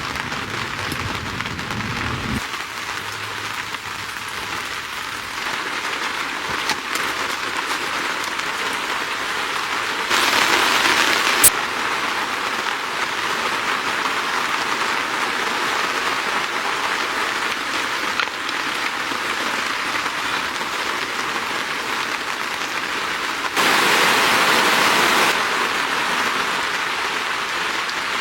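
Steady rain falling on a surface, an even hiss that turns heavier for a stretch about a third of the way in and again for a couple of seconds near the end. There is one sharp tick about midway through the first heavy stretch.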